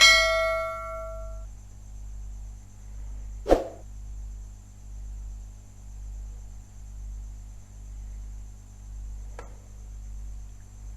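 A single bell-like ding that rings and fades over about a second and a half, a sharp knock about three and a half seconds in, then a steady electrical hum.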